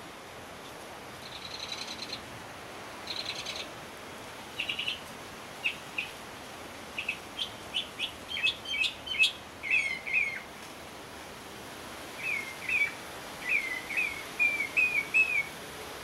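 Bahama mockingbird singing: a string of varied phrases, starting with two harsh, raspy bursts, then a run of short, sharp notes, and near the end a series of repeated slurred whistles.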